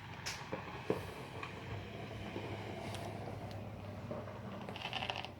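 Faint hiss and low hum with a few short clicks scattered through it: background noise of a weather radio receiver between transmissions.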